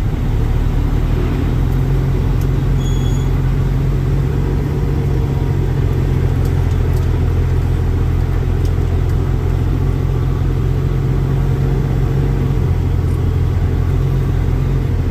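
Heavy truck's diesel engine running steadily under way, hauling an end-dump trailer; the engine note rises a little about a second and a half in and then holds.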